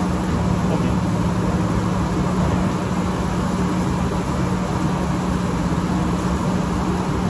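A steady mechanical hum under a constant hiss, unchanging throughout.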